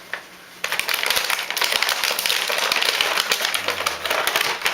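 Toy packaging being handled and crinkled: a dense run of small crackling clicks that starts about half a second in and keeps going.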